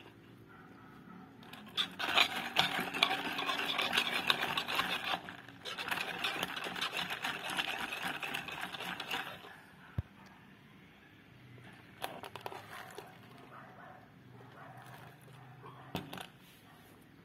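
Ice rattling and clinking inside a lidded plastic cup as a straw stirs an iced drink, in two quick runs of a few seconds each. It is being stirred to mix in the sugar syrup that has settled at the bottom. Fainter knocks follow near the end.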